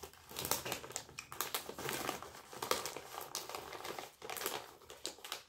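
A plastic snack bag of popcorn crinkling and rustling as it is handled, in irregular crackles with short pauses.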